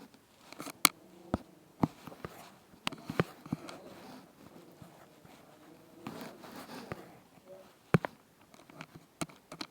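Irregular small clicks and taps of close-up handling, about one or two a second, with faint rustling between them.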